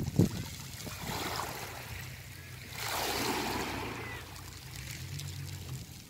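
Small waves washing up over a beach of smooth round pebbles, the water's rush and the pebbles rolling and rattling in a 'charreureu' hiss that swells about a second in and most strongly about three seconds in. A short low thump just after the start.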